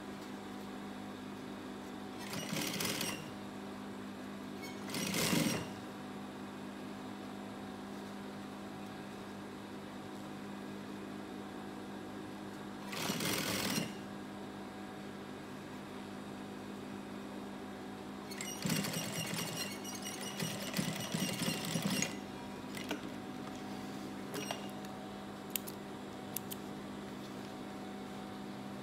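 Gemsy industrial sewing machine stitching denim in short runs: three brief bursts of about a second each, then a longer stop-and-go stretch of about three seconds, over a steady hum. A few small clicks near the end.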